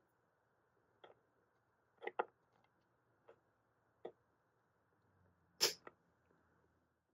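About half a dozen faint, sharp clicks and snips, the loudest one about two thirds of the way through, as of small flush cutters trimming the excess wire leads after soldering a tone capacitor to a potentiometer.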